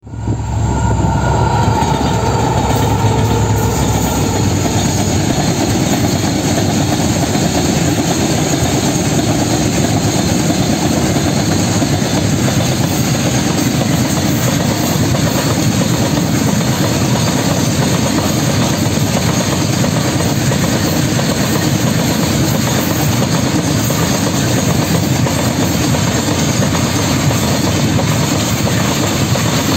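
An Indian Railways goods train passes close by at speed. The WDP-4 diesel locomotive's engine tones are heard in the first few seconds, then a long rake of covered wagons rolls past with the steady noise and clatter of steel wheels on the rail.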